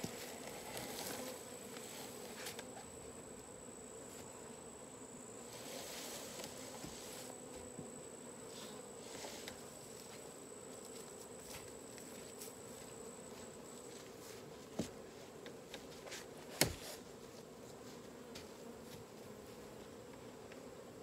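Honeybee swarm buzzing, a steady hum of many bees in flight. Two sharp knocks, about two seconds apart, come about two-thirds of the way in.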